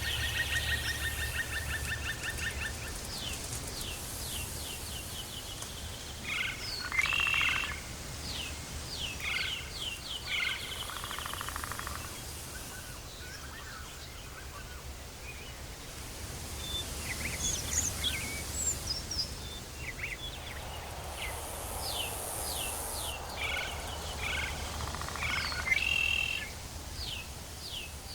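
Tropical forest ambience: several birds calling, with repeated trains of quick high chirps and scattered calls, over a steady low rumble.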